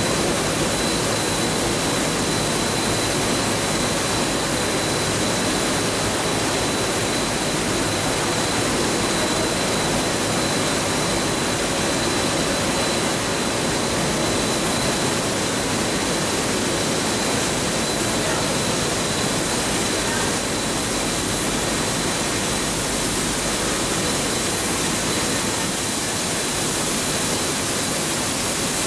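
Steady noise of a coil car mat production line running: the centrifugal blower and conveyor oven machinery working continuously, with a faint steady high whine.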